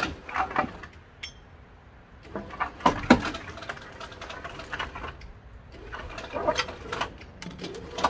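A Rover L-series engine and gearbox being dragged out of the engine bay by a winch cable: irregular scraping, creaking and clanking of metal as the unit shifts and drops, with the loudest knocks about three seconds in and again near the end.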